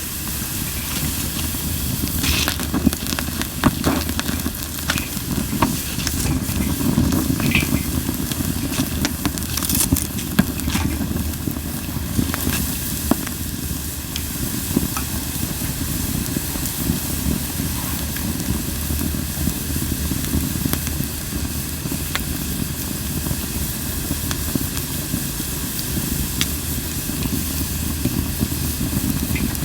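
Campfire of Japanese linden (basswood) logs burning, with scattered sharp crackles and pops over a steady low rush of flames and a hiss.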